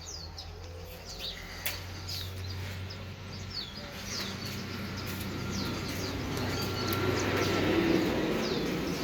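Small birds chirping over and over in short, quick downward notes. Under them a low steady hum fades out about four seconds in, and a broad rushing noise swells toward the end.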